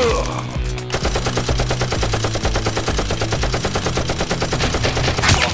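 Rapid automatic gunfire, a long run of evenly spaced shots starting about a second in and stopping near the end, dubbed in as a machine-gun sound effect for a toy blaster. A loud single crack comes at the start and another near the end.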